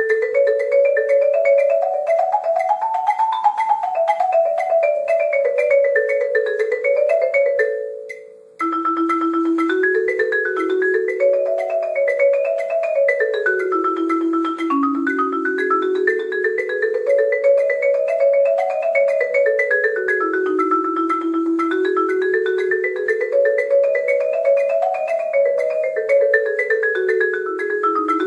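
Marimba played fast with mallets, the two hands running up and down scale-like patterns in two registers at once. The playing breaks off briefly about eight seconds in and then carries on.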